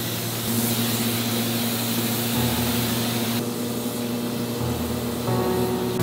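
Paint spray gun hissing as it coats cast-iron valve bodies, over a steady low hum; the high part of the hiss drops away sharply about three and a half seconds in.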